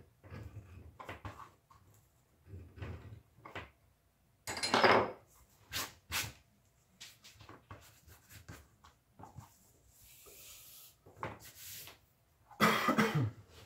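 Hand-tool work on a leather strap: an edge beveler scraping along the edges of the leather in short, separate strokes, mixed with the strap being handled and slid across the workbench. The two loudest, longer scrapes come a little over four seconds in and near the end.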